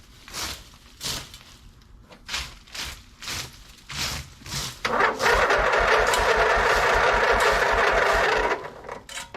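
An engine is cranked by its starter for about three and a half seconds without catching, the sound stopping abruptly. Before that there is a run of sharp ticks about twice a second. The engine has a Chinese carburetor and its fuel pump is not yet hooked up, so it is not getting fuel to start.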